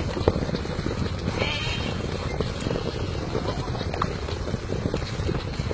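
Hooves of a running herd of horses and sheep drumming on grass, a dense, irregular thudding, with a sheep bleating briefly about a second and a half in.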